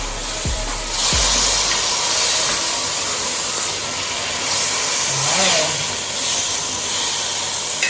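Chicken gizzards sizzling hard in burnt sugar in a hot pot: a loud, steady hiss that swells now and then.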